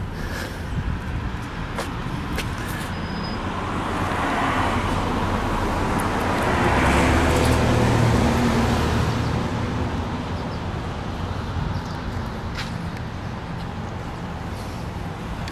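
A road vehicle passing on the highway, its engine and tyre noise growing louder to a peak about halfway through and then fading away.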